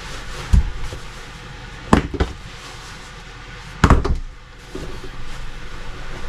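A low thump, then two pairs of sharp knocks about two seconds apart, over a steady low hum.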